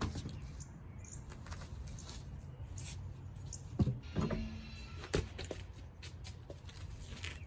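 A few sharp knocks and clicks over a steady low hum. The loudest knock comes about four seconds in and another about a second later.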